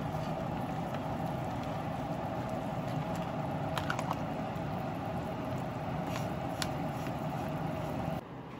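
Lobster broth boiling in a large aluminium pot with a steady bubbling hiss while a wooden spatula stirs it. There are a few light clicks of the spatula against the pot around the middle, and the sound stops abruptly near the end.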